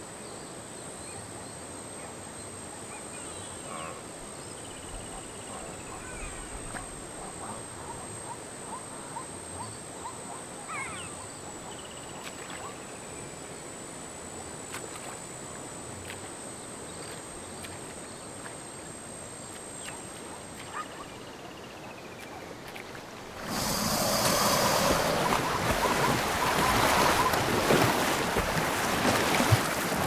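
Quiet riverbank ambience with a steady high insect buzz and a few faint bird chirps. About three-quarters of the way through, a sudden loud burst of splashing, churning water as a Nile crocodile lunges out of the river at drinking zebras and thrashes in the shallows.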